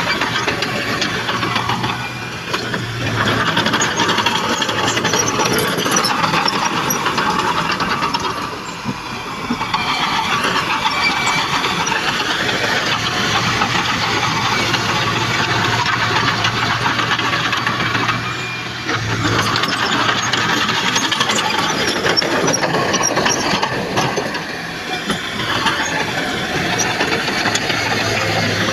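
Heavy earthmoving machinery at work: the diesel engines of a bulldozer and dump trucks running with a steady low hum. The loudness dips briefly about four times.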